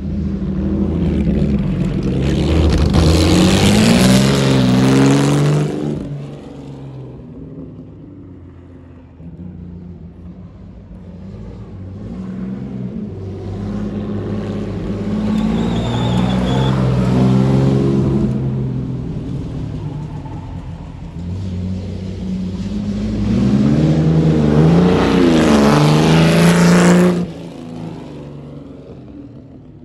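1956 Jaguar D-Type's twin-cam straight-six on three Weber carburettors, accelerating three times with the engine pitch climbing, easing off between each run. The last run cuts off sharply near the end.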